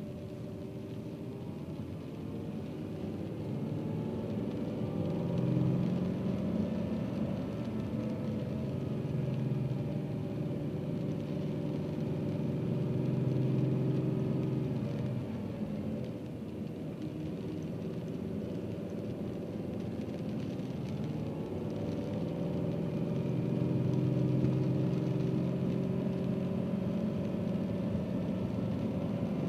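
Subaru EZ30 3.0-litre flat-six engine revved up and held at higher rpm twice, settling back in between, showing a knocking rattle that comes in around 2500 rpm, which the owner fears may be a bearing. Rain noise is in the background.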